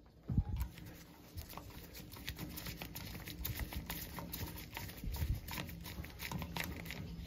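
Screwdriver turning the screw in the wiring-box cover of a Taco 0015e circulator: a string of small irregular clicks and scrapes, with a louder knock about half a second in.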